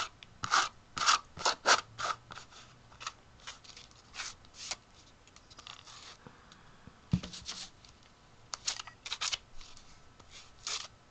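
A pink Cat's Eye ink pad rubbed and dabbed over the edges and face of a canvas: a string of short, scratchy swipes in irregular clusters, with one sharper knock a little past halfway.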